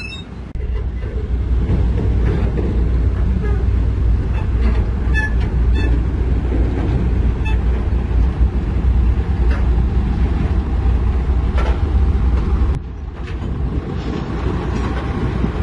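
Heavy diesel engine of construction machinery running hard: a loud low rumble that rises about half a second in and drops back sharply near the end. Scattered metallic clanks and ticks sound over it.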